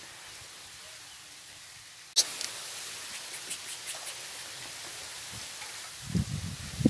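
Steady open-air hiss that jumps louder abruptly about two seconds in, with faint scattered ticks, then low rumbling bumps on the microphone near the end and one sharp knock at the very end.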